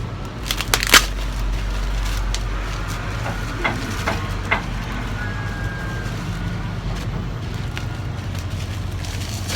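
A shipping parcel's plastic packaging being handled and opened, with a few sharp crackles about a second in and lighter ticks around the middle, over a steady low hum.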